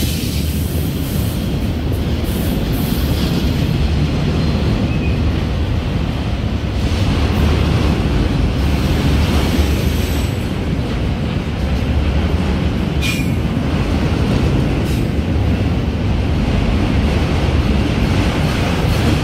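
Freight train of auto-rack cars rolling past close by: a steady rumble of steel wheels on the rails, with one short sharp click about two-thirds of the way through.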